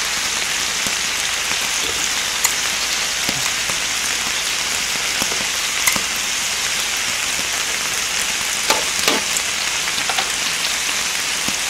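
Pork belly and pork neck sizzling steadily on a hot griddle, with a few light clicks as metal tongs handle the slices.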